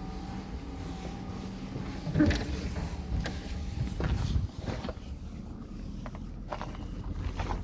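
Chinese 8 kW diesel air heater running with a steady low hum. A louder, rougher stretch starts about two seconds in, and several sharp clicks or knocks come over the hum later on.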